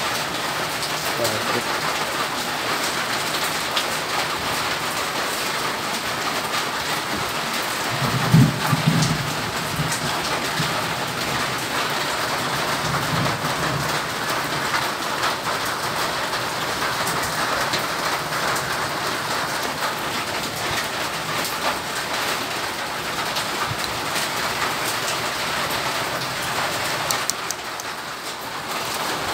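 Steady rain pattering on a surface, with a brief low rumble about eight seconds in.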